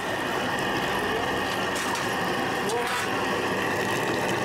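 Steady mechanical hum like a running engine, with a constant high whine over it.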